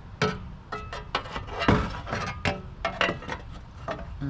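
Cold air intake parts knocking and clinking as they are handled and test-fitted: a quick, irregular run of sharp knocks and clicks, some with a brief ringing tone.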